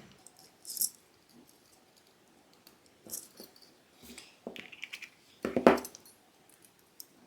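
Hands handling the opened security alarm unit and its cable: scattered light clicks and rattles, the loudest about five and a half seconds in, with a sharp click near the end.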